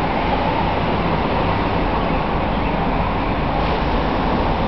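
Steady road traffic noise: an even rumble and hiss with no single event standing out.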